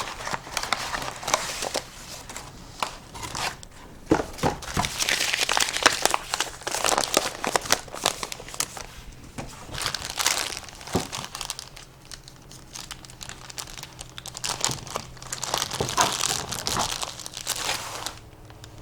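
Packaging being handled and unwrapped: irregular crinkling and crumpling in waves, with scattered light clicks and knocks, stopping shortly before the end.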